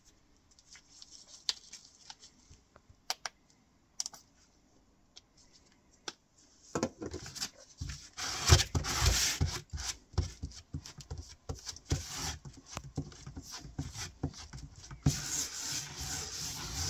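Filler spreader scraping metallic body-filler putty around on a piece of cardboard, mixing it. A few light clicks at first, then quick scraping strokes start about seven seconds in and turn into a steady scrape near the end.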